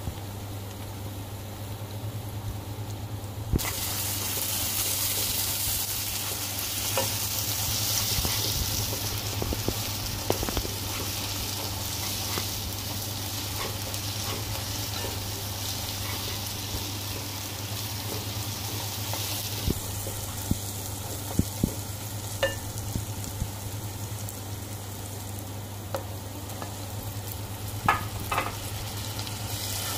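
Onions, green chillies and chilli flakes sizzling as they are stir-fried in a nonstick wok, with the spatula clicking and scraping against the pan. The sizzle grows louder a few seconds in and eases off about two-thirds of the way through, over a steady low hum.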